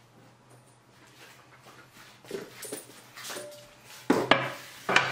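Heat press's upper platen being swung over and set down onto a stacked board, with a few sharp knocks about four seconds in and again near the end.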